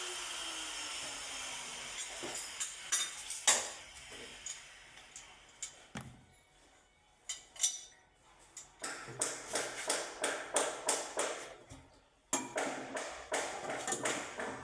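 Hand-tool work: a steady rubbing noise that fades over the first few seconds, then scattered sharp taps and clicks, and from about nine seconds in a quick run of short tapping and scraping strokes, several a second.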